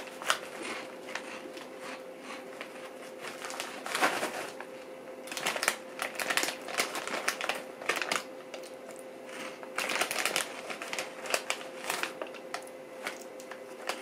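Crunching and chewing of Andy Capp's Fire Fries, crisp corn-and-potato snack sticks, in irregular crackly clicks. The plastic snack bag crinkles as a hand reaches into it about eight seconds in.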